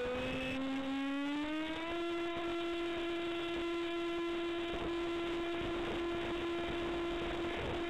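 Electric motor and propeller of an F-27Q Stryker RC flying wing, heard from the onboard camera: a steady whine that rises in pitch over the first two seconds as the motor speeds up, then holds steady, with wind noise underneath.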